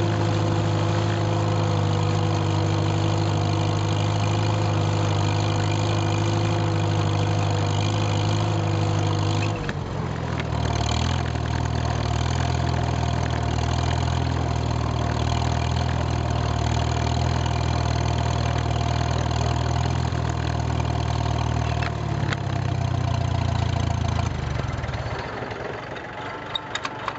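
1951 Farmall H tractor's four-cylinder engine running steadily as the tractor drives along. Its note changes about a third of the way in, then drops back quieter near the end.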